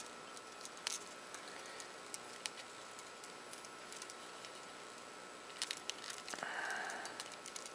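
Faint small clicks of needle-nose pliers on metal as a soldering iron's cord is crimped into the strain relief, with a brief rustling scrape about six and a half seconds in.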